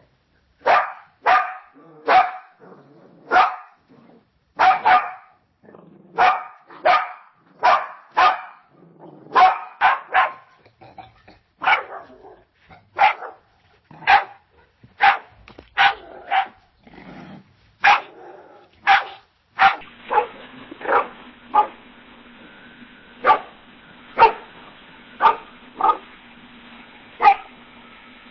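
Dog barking repeatedly in short single barks, about one every second. In the last third the barks come from a different recording, with a steady background hum running under them.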